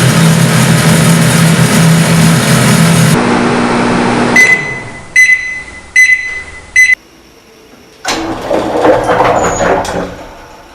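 A loud, steady machine or traffic noise with a low hum, cutting off about three seconds in. Then four short high electronic beeps, a little under a second apart, and after a pause a softer stretch of mixed noise.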